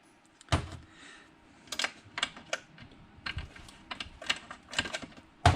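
Light, irregular metal clicks and taps of hand tools working on a chainsaw, as the spark plug is taken out for a spark and compression check. A sharper knock comes near the end.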